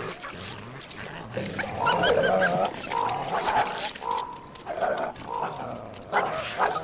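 Wild canids calling: a string of wavering yips and whines that starts about a second and a half in, with a brief burst of noise near the end.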